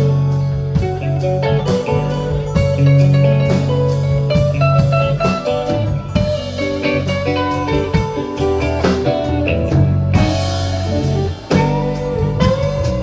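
Live rock band playing: electric guitars, bass, keyboards and drum kit. The top end brightens about ten seconds in, and a sustained note bends upward near the end.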